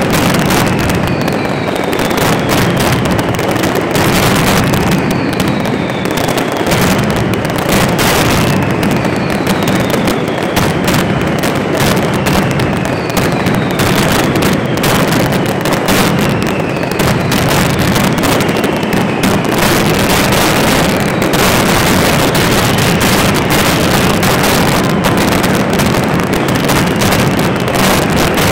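Mascletà fireworks: a continuous dense barrage of bangs and crackling. Falling whistles come through it about every two seconds and stop about two-thirds of the way in.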